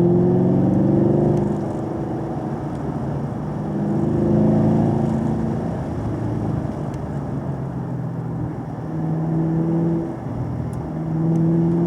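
Vehicle engine accelerating in repeated surges, pitch and loudness rising about four times and easing off in between, over a steady rushing road noise.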